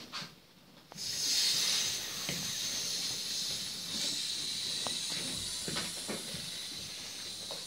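Saxophone blown as an unpitched airy hiss, an extended technique in free improvisation, starting about a second in and held steadily, with a few light taps underneath.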